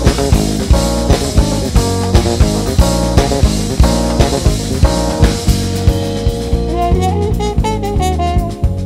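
Instrumental background music with a steady drum beat; a wavering melody line comes in near the end.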